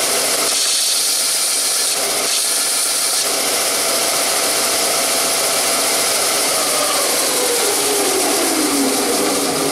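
Electric belt sander running, with a steel drill bit held against the abrasive belt at the start for a quick sharpening pass. Over the last few seconds a whine falls steadily in pitch as the machine winds down.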